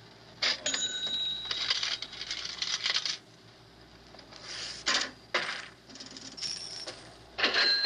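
Bursts of sharp clinks and scraping, some with a brief ringing tone. The first cluster comes about half a second in and lasts a few seconds, with further clinks later and a loud one near the end.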